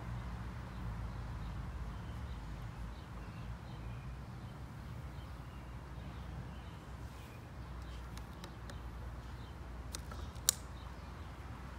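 Quiet background ambience: a steady low hum under a faint hiss, with a few soft ticks and one sharp click near the end.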